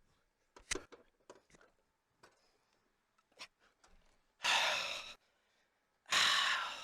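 A person's breath close to the microphone: two long, loud exhales, each fading out, the second about a second and a half after the first. Before them, a few faint clicks and handling noises.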